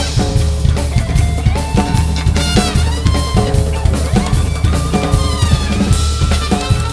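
Drum kit playing a busy groove with a band, pitched melodic instrument lines running over the drumming.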